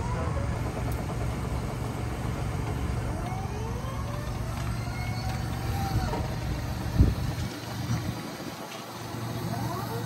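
Steady low machine rumble of the air compressor driving a compressed-air dryer-vent cleaning hose, with a sharp knock about seven seconds in. The rumble drops away soon after the knock.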